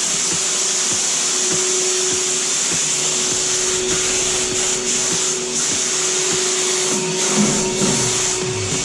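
Titan Capspray turbine HVLP spray rig running while the gun sprays bathtub finish coat: a steady high hiss of air and atomised coating over a constant whine.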